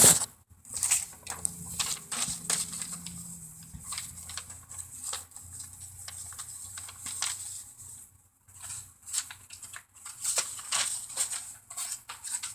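Irregular rustling and light clicks of objects being handled and moved about, with a faint low hum in the first few seconds.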